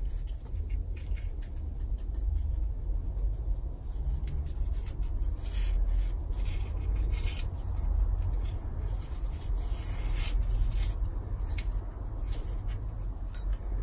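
Handling noise as a turbocharger cartridge is seated in its compressor housing: metal parts rubbing together, with scattered light clicks and knocks over a steady low rumble.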